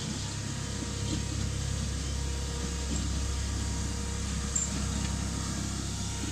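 Miniature railway train hauled by the locomotive No. 2000 Mighty Max, running steadily: a constant low rumble with a faint steady hum over it.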